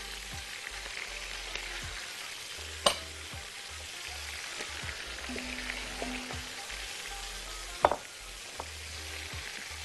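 Onions, carrots, whole garlic cloves and mushrooms sizzling steadily in a pot over browned beef, being stirred with a silicone spatula. Two sharp knocks come about 3 s and 8 s in.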